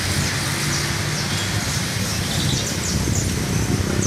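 Songbird calling in short, high chirps, several in quick succession in the second half, over a steady background of outdoor noise with a low hum.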